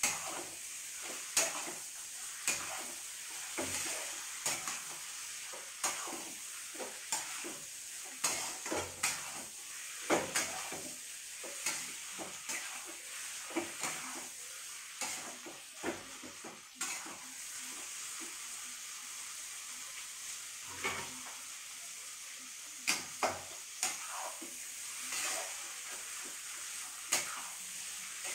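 A spatula scraping and knocking against a stainless steel kadai as chicken pieces are stirred into masala, over the steady sizzle of frying. The strokes come in quick irregular runs, with a short lull in the stirring about two-thirds of the way through.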